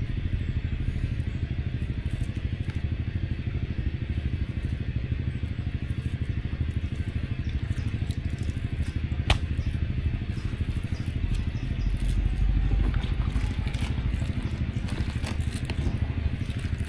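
Small engine running steadily at an even speed, its low rapid firing beat continuous throughout, with one sharp click about nine seconds in.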